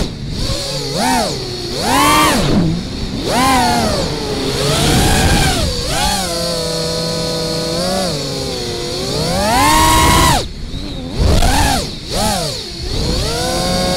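FPV quadcopter's Butterflight 2207 brushless motors and propellers whining, the pitch swooping up and down with throttle in quick swells. The pitch holds steadier for a couple of seconds in the middle, then climbs and cuts off sharply about ten seconds in before the swells resume.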